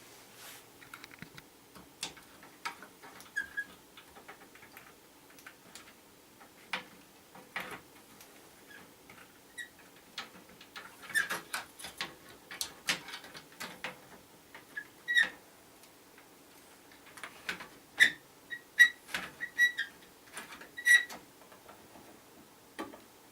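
Irregular sharp clicks and taps of hands handling small hardware, some with a brief high squeak, coming thicker and louder in the second half.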